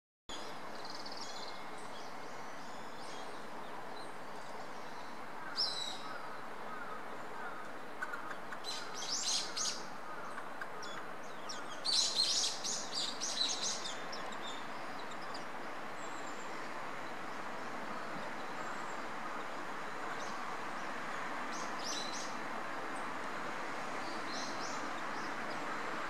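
Wild birds chirping: short high chirps about five seconds in, a cluster around nine seconds and a busier run around twelve to fourteen seconds, a few more near twenty-two seconds, over a steady outdoor background hiss.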